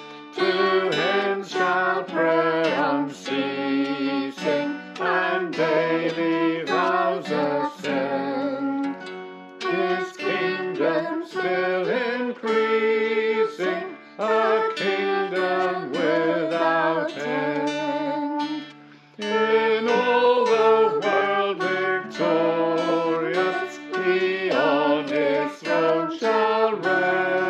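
A hymn sung by several voices, accompanied by strummed acoustic guitar, with brief pauses between the sung lines.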